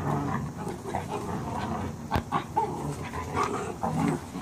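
Dogs play-fighting, with short irregular whines, yips and grumbles, and one sharp click about two seconds in.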